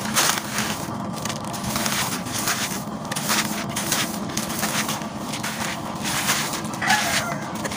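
Gritty sand and small gravel pouring into a tub: a continuous gritty rush with many small stones crackling and rattling.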